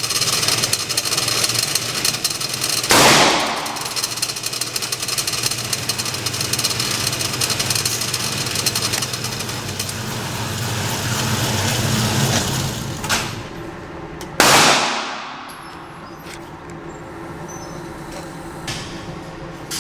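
Two loud handgun shots, about 3 seconds and 14 seconds in, each trailing off in a ringing echo, over a steady low hum of background noise.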